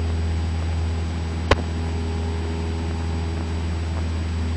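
Cessna 172's engine running steadily at climb power, heard as a continuous low drone in the cabin. A single sharp click about a second and a half in.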